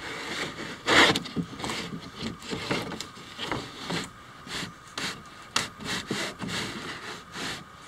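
Irregular scraping, rubbing and creaking as a freshly cured fiberglass kayak piece is worked loose from its mould, with wooden knocks among it. The loudest knock comes about a second in.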